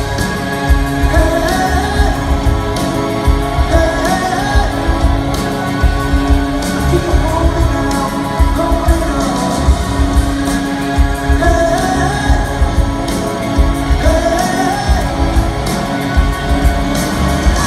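Live rock band playing a loud, droning song: a heavy low drum beat under sustained held chords, with a voice singing repeated phrases that rise in pitch.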